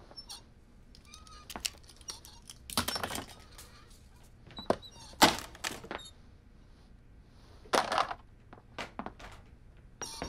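Stiff cardboard cards being handled and rustled: a string of short knocks and thuds, with longer rustles about three and eight seconds in and the sharpest knock about five seconds in.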